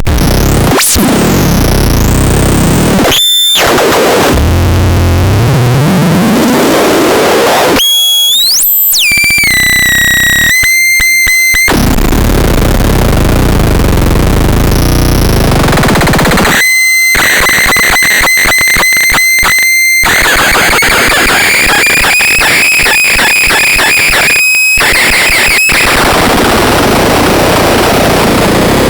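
Electronic noise box putting out loud, harsh distorted noise that keeps changing, with sudden cut-outs and sweeping pitches. About halfway through, a high tone stutters on and off rapidly for a few seconds.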